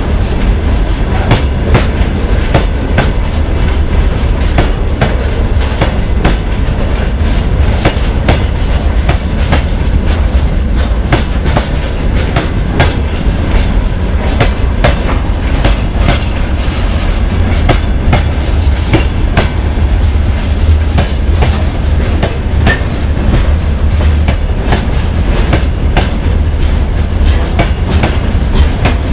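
Open gondola wagons of a freight train rolling past close by: a steady heavy rumble with frequent wheel clacks over the rail joints.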